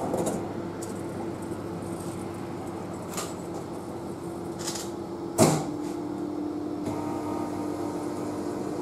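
Retro ramen vending machine running steadily while it prepares a bowl partway through its cooking countdown, with a few light clicks and one louder knock about five seconds in.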